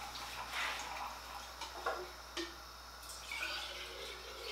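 Faint kitchen sounds: a few light clicks and knocks, with a little dripping or running water.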